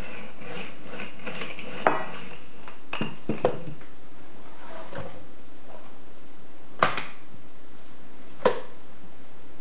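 Rolling pin and hands working bread dough on a rolling mat on a kitchen counter: a few sharp knocks and taps, the two loudest late on, over a steady background hiss.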